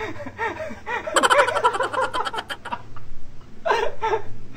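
A man laughing in quick repeated bursts that die away about two and a half seconds in, followed by a couple of short breathy laughs near the end.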